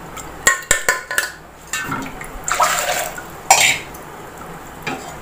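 Metal utensils clinking against steel pots and a pressure cooker as cooked sago pearls are scooped out and strained, with a short wet splash of water in the middle. There are several quick clinks at the start and another clink about three and a half seconds in.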